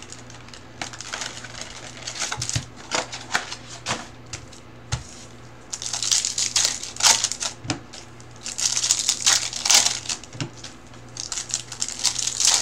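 Foil trading-card pack wrappers and cards being handled, crinkling and rustling in irregular bursts with scattered clicks. The rustling grows louder about six seconds in and again near nine and eleven seconds.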